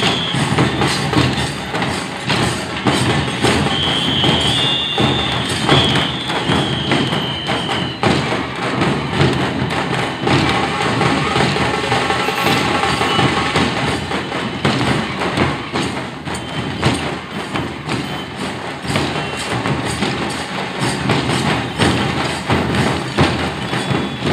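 Loud, continuous drumming of a street procession, dense beats without a break. A high wavering tone sounds over it for a few seconds near the start.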